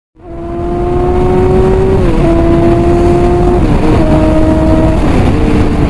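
A motor vehicle engine accelerating hard through the gears: a steady pitch climbs slowly and then drops at each shift, three times.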